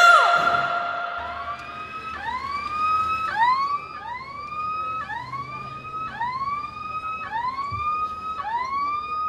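Ambulance siren sounding in quick repeated rising sweeps, about three every two seconds, over a low vehicle engine hum. It opens on a woman's short loud cry.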